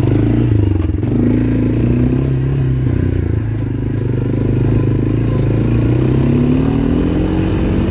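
Four-wheeler (ATV) engine running under way as it is ridden, its pitch drifting up and down with the throttle and rising near the end.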